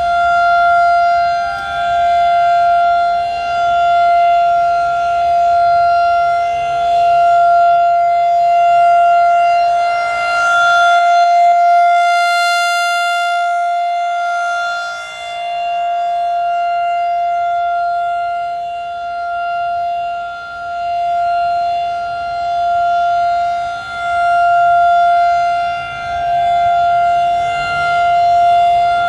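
Federal Signal 2001-DC outdoor warning siren sounding its steady alert tone during a test, one loud unbroken pitch with many overtones. The siren rotates, so the tone swells and fades every few seconds.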